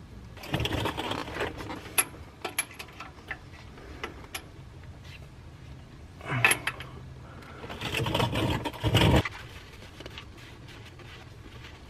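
Hand tools working steel hydraulic hose fittings: a ratchet and an adjustable wrench clinking and rattling against the metal in bursts about half a second in, again around six seconds and around eight seconds, with scattered sharp clicks in between.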